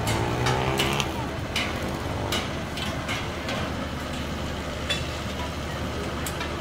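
Repeated metal clanks and knocks of steel pipe shelter frames being pulled apart and dropped, over the steady running of a heavy vehicle's engine.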